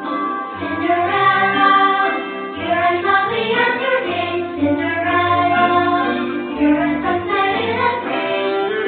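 Fireworks-show soundtrack music: voices singing over held bass notes that change every second or so. No firework bangs stand out.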